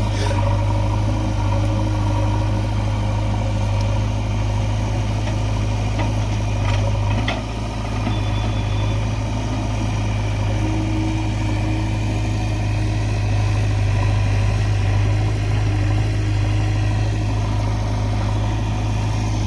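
Heavy diesel engine running steadily at a constant pace, a deep even hum with no revving.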